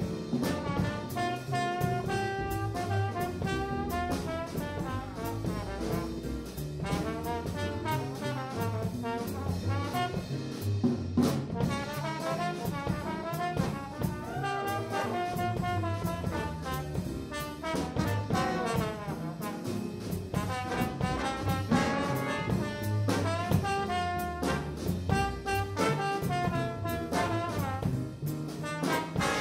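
Live jazz big band playing, with a trombone carrying a moving melodic solo line over bass and drums, and brass joining in.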